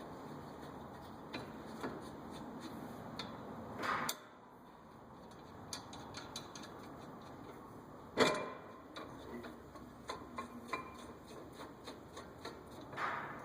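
Light metallic clicks and taps of brake parts and hardware being handled and fitted at a car's front wheel, with a few louder knocks, the sharpest about eight seconds in.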